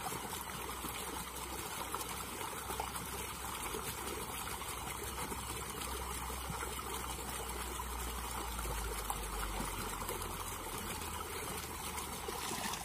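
Water trickling and running steadily in a river.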